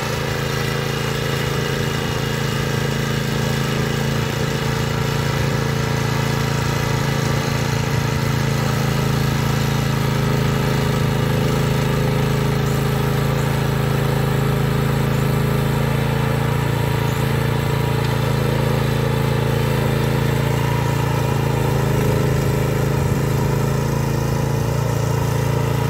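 Two-wheel walking tractor's engine running steadily under load as it drives a Berta rotary plow through the soil.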